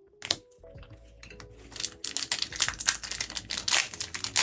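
Foil trading-card booster pack wrapper being torn open and crinkled, a fast run of crackles starting about two seconds in.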